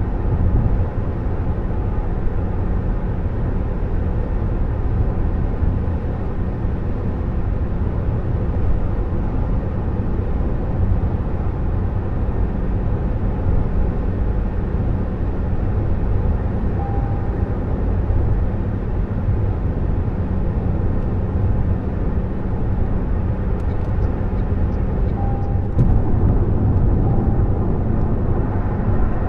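Steady road and tyre noise with a low rumble from a 2024 Toyota Prius plug-in hybrid driving at highway speed. It gets louder near the end as the car enters a tunnel.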